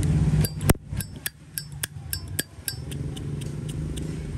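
Metal Zippo lighter clicking and clinking as it is handled: about ten sharp metallic clicks in the first three seconds, the loudest about a second in.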